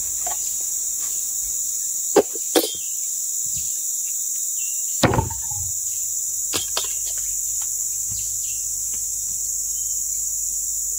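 Steady high-pitched insect drone, with a few sharp knocks of a parang (machete) striking ulin wood, the loudest about two and five seconds in.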